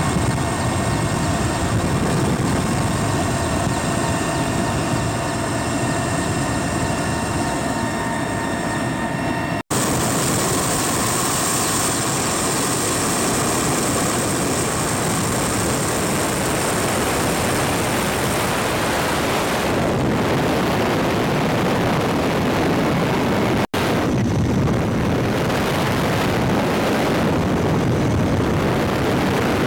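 Mil Mi-8 helicopter in flight, heard from inside the cabin: the loud, steady noise of its twin turboshaft engines and main rotor, with steady high whining tones over it for the first third. The sound cuts out for an instant twice.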